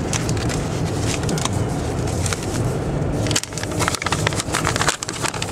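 Paper crinkling and rustling as it is handled, growing busier and louder in the last two seconds, over the steady low rumble of a car cabin at road speed.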